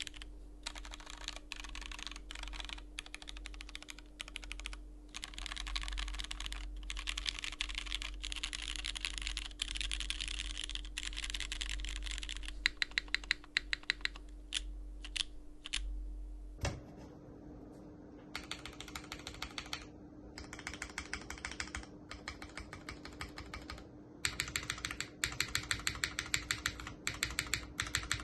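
Continuous typing on a JJW Cloudline V2 mechanical keyboard with an aluminium plate and Cherry MX Hyperglide Black switches with Gateron Milky Yellow Pro tops, a dense run of key clicks. About two-thirds of the way through, the sound changes abruptly as a different recording takes over.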